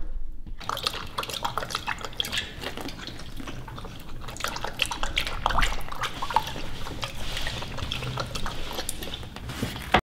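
A puppy lapping water from a stainless steel bowl: a quick, irregular run of small wet splashes and clicks.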